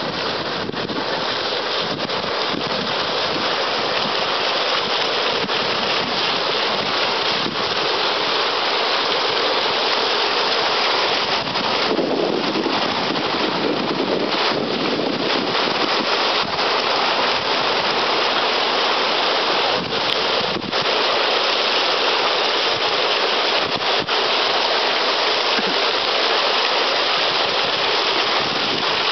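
A row of small fountain jets splashing into a pool: a steady rush of falling water.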